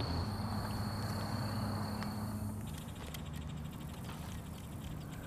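A steady high cricket-like insect trill that stops about halfway through, over a low steady hum, followed by a few faint clicks.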